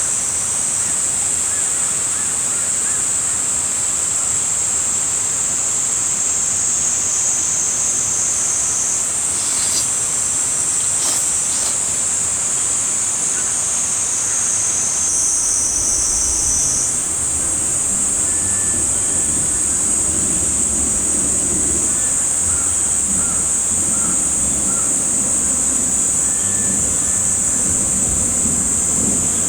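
Cicadas calling in a steady, continuous high-pitched chorus. About halfway through, a lower, rougher noise joins underneath.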